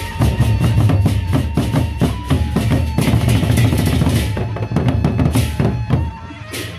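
Gendang beleq ensemble playing: large Sasak barrel drums beaten with sticks in fast, dense interlocking strokes, with hand cymbals clashing over them. Near the end the deep drumming drops away briefly under a cymbal clash.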